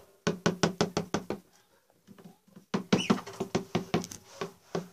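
Quick run of sharp taps, about seven a second: one short run, a pause, then a longer run. It is handling noise close to the phone's microphone as the toys and phone are moved.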